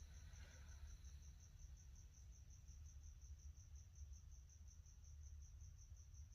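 Near silence: room tone with a low hum and a faint, high-pitched, evenly pulsing chirp, about six pulses a second.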